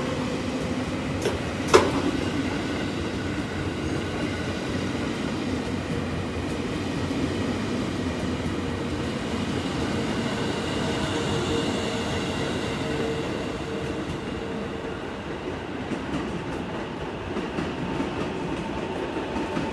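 JR 651 series electric multiple unit pulling away from the platform, its traction motors and wheels running with a steady tone over rail noise. About two seconds in there is one sharp, loud clunk, the kind a line breaker makes as it switches. The sound then eases as the train draws away.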